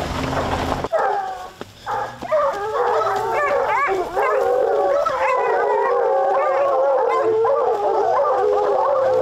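A pack of bear hounds baying at a black bear held at bay on the ground: many dogs' wavering howls and bawls overlap without a break, starting about a second in.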